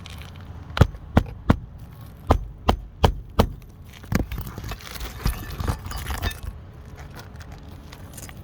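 A run of sharp impacts: seven loud ones in quick succession in the first three and a half seconds, then lighter, scattered knocks and clicks over a low rumble.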